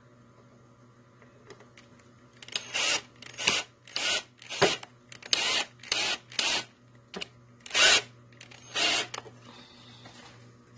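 Cordless drill driving a screw through a metal hoop into a wooden slat of a fruit press basket, in about ten short trigger bursts with brief pauses between them. A steady low hum runs underneath.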